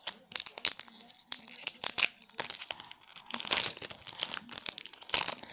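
Plastic trading-card pack wrapper crinkling and cards being handled, a busy run of sharp snaps, flicks and rustles, with louder rustling in the second half.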